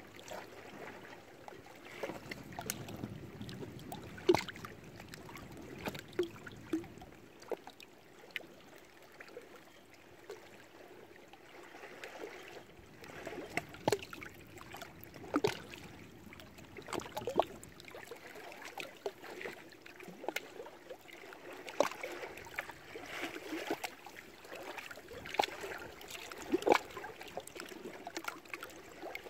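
Small waves lapping at the lake shore, with irregular splashes every second or so over a steady wash of water.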